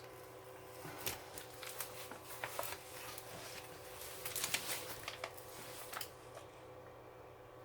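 Close handling noises of a diamond painting canvas and its torn plastic cover film: light crinkling with scattered small clicks and ticks, dying away about six seconds in.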